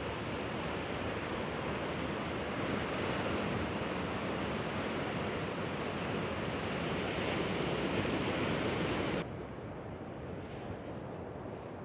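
Sea waves breaking on the shore, a steady rushing noise. About nine seconds in it suddenly drops in level and goes duller.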